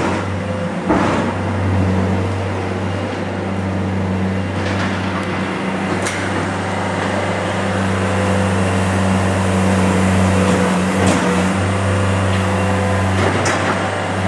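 A steady, low mechanical drone, like a motor running, with a few faint knocks and clicks.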